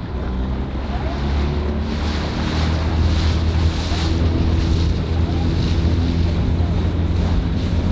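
A motor launch's engine running and speeding up, its hum rising in pitch and loudness over the first few seconds, with wind buffeting the microphone and water rushing past the hull.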